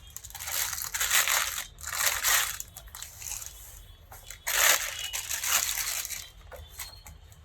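Plastic packaging crinkling and rustling in several bursts as parts are unpacked from a box, the loudest bursts about a second in and again about halfway through.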